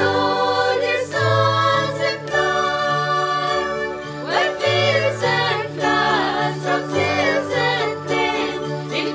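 Christmas song with singing voices over a steady bass line and a jingle-bell accompaniment.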